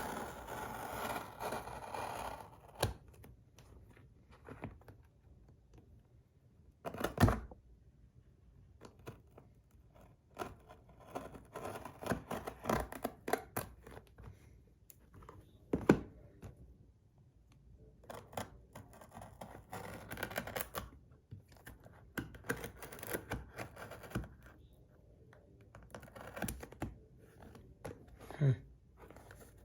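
Packaging being opened by hand: irregular rustling, scraping and tearing, broken by a few sharp knocks, the loudest about seven and sixteen seconds in.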